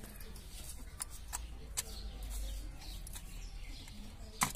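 A few sharp clicks and knocks as a hand handles the plastic and metal of a Suzuki Cultus's air-filter housing: three in the first two seconds, the loudest just before the end. Birds chirp faintly in the background.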